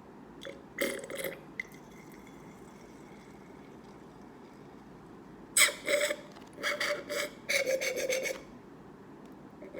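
Baby oil glugging out of a bottle as it is poured into an empty jar: a short burst about a second in, then several glugging spells from about halfway through.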